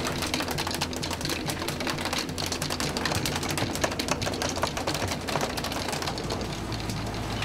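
Freshly landed bonito thrashing on a wet boat deck, their tails beating in a rapid, clattering drumming, over the steady low hum of the boat's diesel engine.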